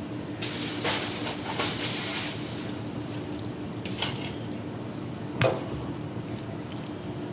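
Wet squelching and splashing for about two seconds as a squid is handled and cleaned, then two sharp knocks. A steady low hum runs underneath.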